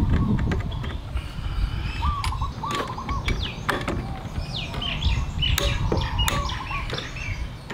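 Small birds chirping repeatedly over a steady low rumble. A few sharp clicks from a ratcheting torque wrench tightening a scooter's clutch nut are spread through.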